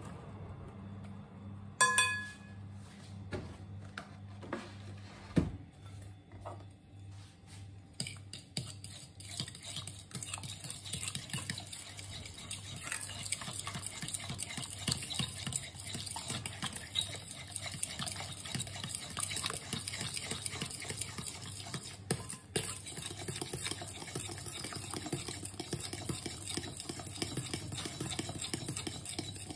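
A utensil stirring wet batter in a glass bowl: a fast, continuous scraping and clicking against the glass from about eight seconds in. Near the start the utensil strikes the bowl once with a ringing clink, followed by a duller knock a few seconds later.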